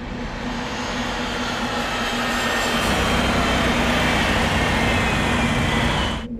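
Propeller biplane engine droning as it flies past, growing louder toward the middle and cutting off suddenly near the end.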